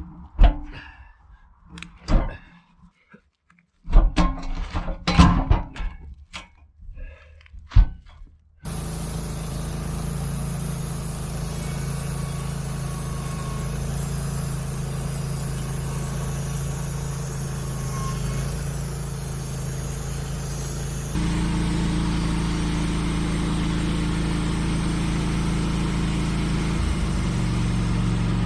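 A string of separate knocks and thuds. Then, about a third of the way in, an engine starts running steadily with a low hum, and its sound changes abruptly about two-thirds of the way through.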